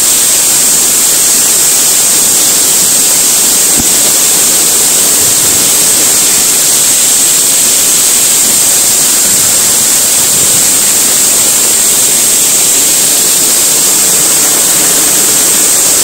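Loud, steady rush of a waterfall pouring onto rock right beside the microphone, its spray falling heavily like rain.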